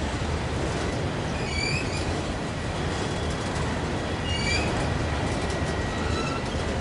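Freight train of autorack cars rolling past: a steady rumble of steel wheels on the rails, with two brief high wheel squeals, the first about a second and a half in and the second about four and a half seconds in.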